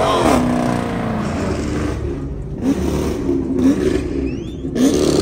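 A car engine, revved high, drops back sharply at the start. It then runs lower and is given three quick throttle blips.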